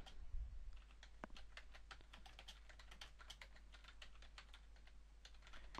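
Faint typing on a computer keyboard: a steady run of light key clicks, several a second, as a short phrase is typed.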